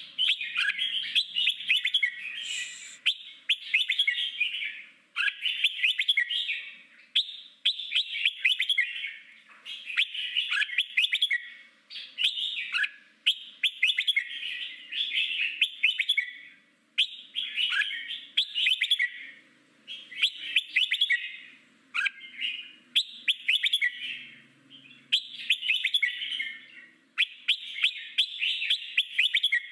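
Red-whiskered bulbul singing its forest-style song: a long run of short phrases of quick, high notes, each about a second long, with brief pauses between them.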